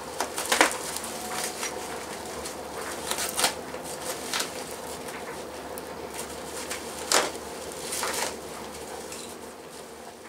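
Clear plastic bag of small machined parts being handled: crinkling and rustling, with a few louder crinkles at irregular moments.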